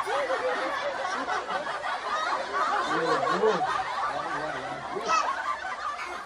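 People laughing and chuckling, over water splashing as large catfish thrash in a shallow, nearly drained pond.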